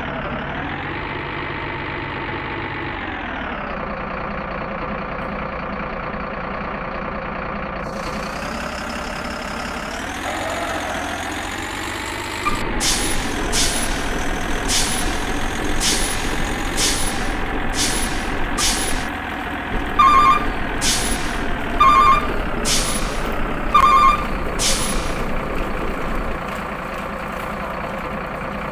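A truck engine running steadily. From about halfway a regular run of short, sharp hisses sets in, and three beeps sound near the end.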